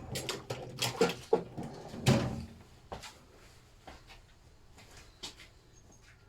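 Clicks, clinks and knocks of a Lister D rocker shaft assembly being handled as its cable tie is taken off and the parts are laid out. The knocks come close together for the first two and a half seconds, then thin out to a few scattered clicks.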